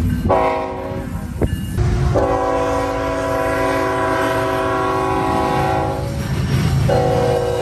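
GE ET44AC freight locomotive's horn sounding a chord over the low rumble of the train: a blast of about a second and a half that breaks off, then a long blast of nearly four seconds, and after a pause of about a second another blast starting near the end.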